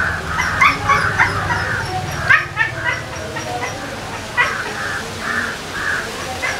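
A dog yipping and barking in short, sharp calls, several times over a few seconds. Under it runs a steady chirring that pulses about twice a second.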